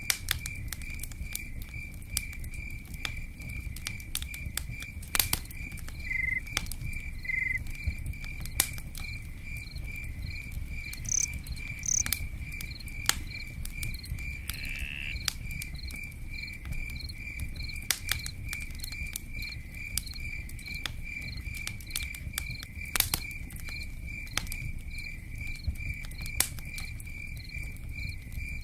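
Campfire crackling with scattered sharp pops over a low rushing sound, while a cricket chirps steadily at about three pulses a second. A few short, higher chirps come in now and then.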